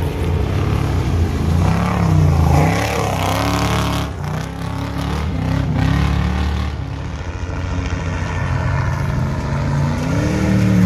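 Off-road trophy trucks racing past at speed on a dirt course, engines revving up and down as they go by.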